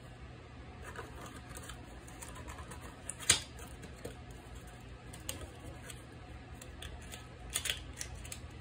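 Scattered small clicks and taps of a boxed deck of playing cards being handled and turned over by hand, with one sharp click about three seconds in and a quick double click near the end.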